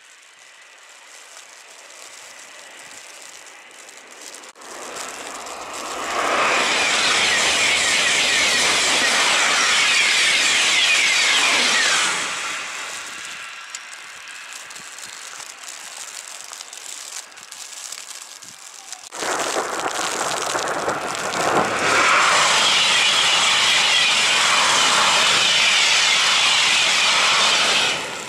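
TGV high-speed trains passing at speed, twice: a loud rushing of air and wheels for about six seconds, then after a quieter lull a second, longer close pass by a TGV Duplex double-deck trainset that cuts off suddenly near the end.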